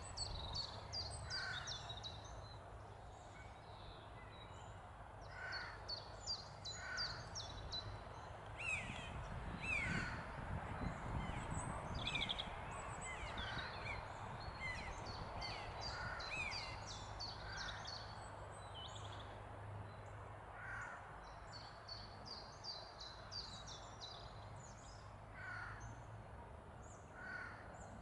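Eurasian jay calling with short harsh notes every few seconds, among other small birds singing in runs of rapid high notes. A steady low hum runs underneath.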